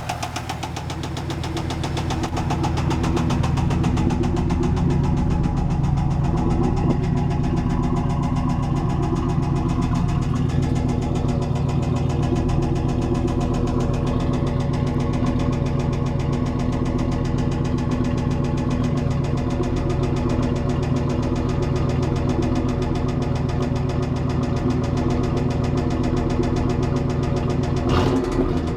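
1995 Camaro Z28's LT1 5.7-litre V8 running with a bad rod knock, the rapid knock of a worn connecting-rod bearing. It grows louder over the first few seconds, then runs steadily.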